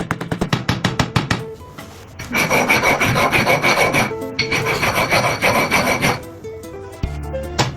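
Abrasive grinding on glass, two passes of about two seconds each with a steady high whine running through them. Background music with a plucked-guitar rhythm plays before and after.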